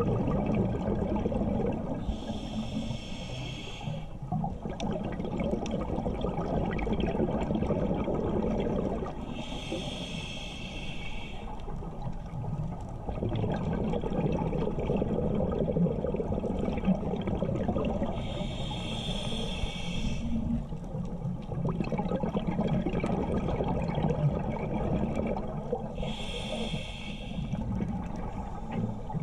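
Scuba diver breathing through a regulator underwater: four exhalations about eight seconds apart, each a hissing burst of bubbles, over a steady low rumble of water.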